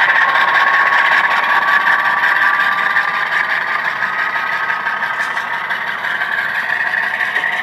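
ESU LokSound version 4 decoder in an HO scale GE C39-8 diesel model playing its running engine sound under power, the classic GE chug, through the model's small speaker. It is steady and slowly gets a little quieter.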